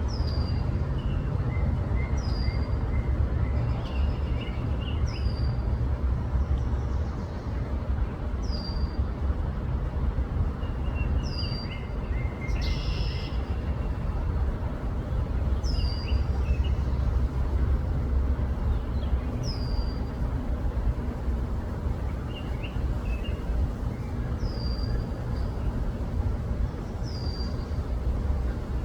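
A bird calling over and over, a short high note that slides down and then levels off, repeated about every two to three seconds, with a few softer lower chirps in between. Under it runs a steady low rumble, louder than the calls.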